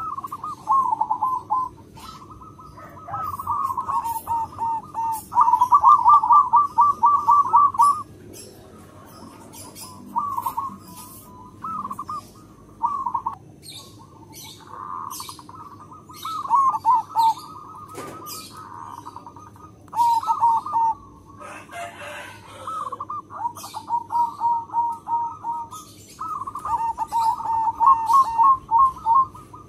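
Zebra dove (perkutut) singing its cooing song: repeated bouts of rapid, short rolling coo notes, each bout one to three seconds long with pauses between.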